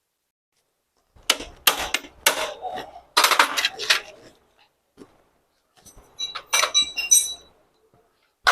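Metal tools and engine parts clattering and clinking while a motorcycle engine is worked on. A burst of sharp knocks begins about a second in, ringing metallic clinks follow later, and there is one sharp knock at the end.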